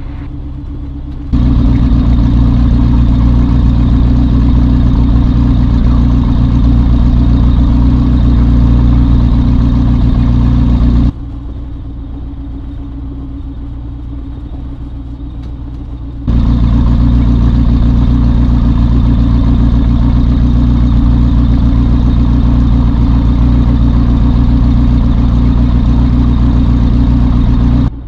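Rotax 912ULS flat-four engine of a Skyreach BushCat light-sport plane running steadily at constant low power while it warms up. The pitch stays fixed, but the level jumps abruptly louder about a second in, drops back about eleven seconds in and comes back up about sixteen seconds in.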